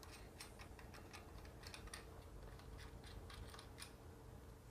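Faint, irregular metallic clicks and ticks of nuts being spun down by hand onto the mounting studs of an air conditioning compressor bracket.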